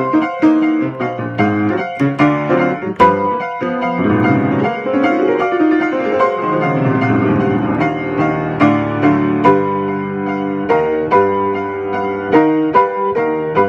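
Piano playing a funky arrangement of a Japanese railway crossing signal: rhythmic chords and syncopated stabs over a bass line, with a fast run of notes sweeping down and back up in the middle.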